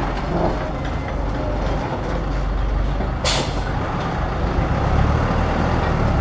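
Loaded Thaco dump truck's diesel engine running as the truck pulls away slowly over dirt. A short, sharp hiss of air sounds about three seconds in.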